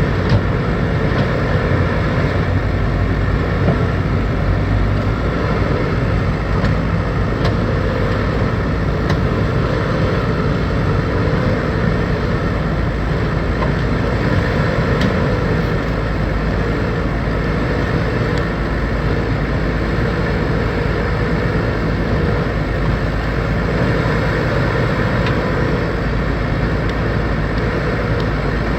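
Backhoe loader's diesel engine running steadily while it works, a low rumble with a mid-pitched tone that wavers slightly in pitch.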